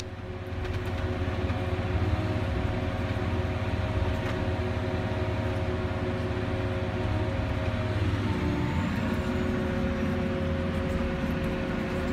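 Log loader's diesel engine and hydraulics running, heard from inside the cab, with a steady whine. The engine comes up in level about a second in as the loader works, and the whine changes pitch around eight seconds in.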